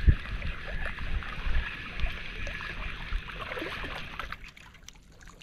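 Water lapping against a rocky shore, with wind buffeting the microphone in low thumps; the steady hiss drops away about four seconds in.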